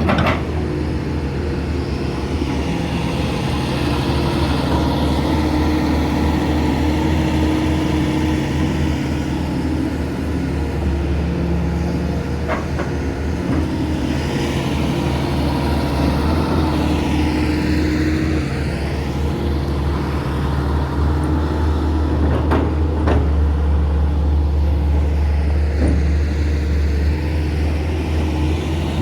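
Hydraulic excavator's diesel engine running steadily under working load, with a few short sharp knocks from time to time.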